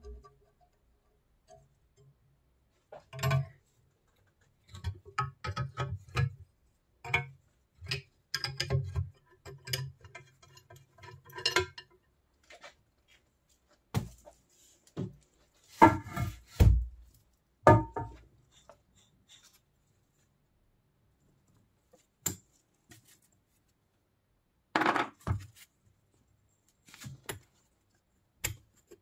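Scattered metallic clinks, scrapes and knocks of a screwdriver and the cast-iron parts of an old bench drill press being handled during disassembly, with short quiet gaps between; the loudest knocks come a little past halfway.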